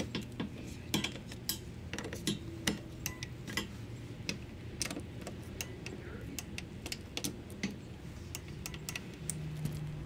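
Torque wrench ratcheting as it tightens the bolts, sharp irregular clicks a few each second.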